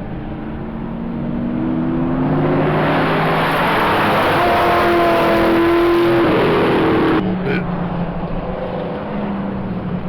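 Car engine accelerating, its pitch climbing steadily for several seconds, then breaking off suddenly about seven seconds in to a steadier, lower engine sound.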